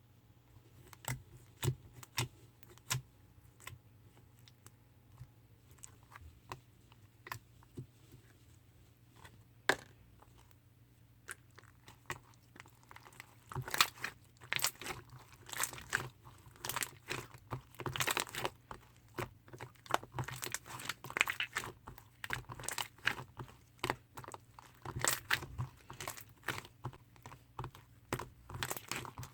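Hands squishing and kneading a chewy pink slime as purple paint is worked into it, giving sticky clicks and pops. They come singly at first, then fast and crowded together from a little under halfway through.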